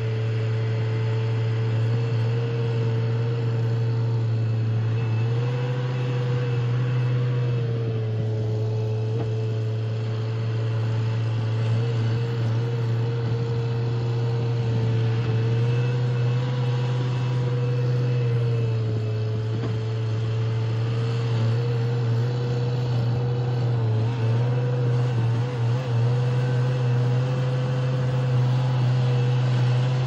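Case backhoe loader's diesel engine running steadily under load as its front bucket pushes through deep packed snow, its pitch stepping up and down a few times.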